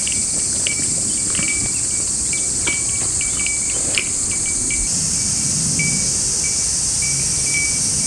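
Summer forest ambience: a steady high-pitched insect drone, with short high chirps repeating irregularly over it and a low wind rumble underneath.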